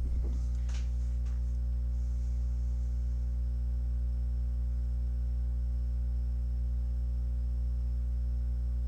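Steady electrical hum with a stack of overtones, unchanging throughout, with a few faint clicks about a second in.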